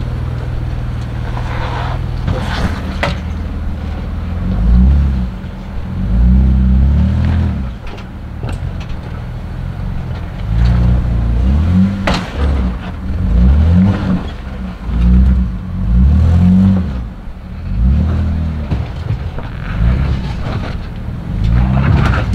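Jeep Wrangler engine revving in repeated bursts, rising and falling, as the Jeep crawls up over boulders, with a few sharp knocks.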